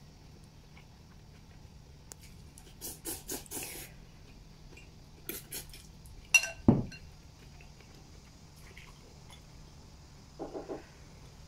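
Someone eating noodles from a porcelain bowl with chopsticks: short eating noises and clinks of chopsticks and bowl. A little past halfway comes the loudest sound, a ringing ceramic clink and a thud. Near the end there are a few quick sips from a small bowl.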